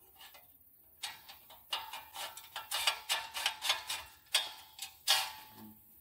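Aluminium rod being pushed through the metal knuckles of a screen-door hinge, making a quick run of metallic clicks and scrapes. It starts about a second in and stops near the end.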